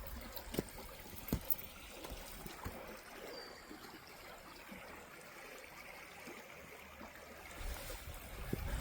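Water in a small stream trickling steadily, with a couple of soft knocks in the first second and a half.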